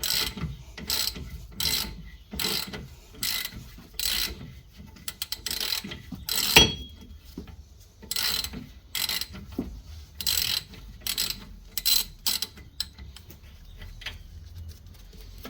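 Hand ratchet clicking in steady back-and-forth strokes, about one every three quarters of a second, as a rusted nut freed by an overnight WD-40 soak is wound off a suspension spindle pin. There is one sharper metallic click about halfway through, and the strokes thin out near the end.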